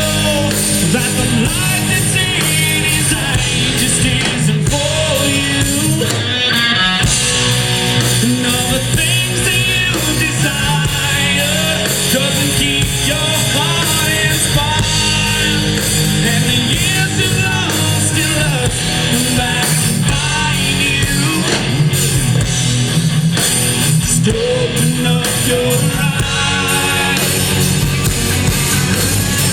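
Rock band playing live, with guitar and singing over the band.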